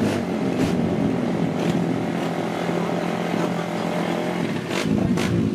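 Tuned underbone motorcycle's single-cylinder engine running steadily through an aftermarket exhaust, with a couple of sharp cracks near the end.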